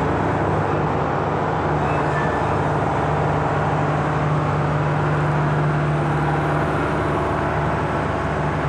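Steady low engine hum over a constant rushing noise, the hum growing a little stronger about two seconds in and easing near the end.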